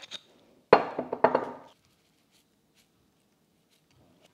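Small plastic seasoning shaker shaken and tapped over a plate: two sharp knocks about half a second apart, then rattling for about a second, after which it goes quiet.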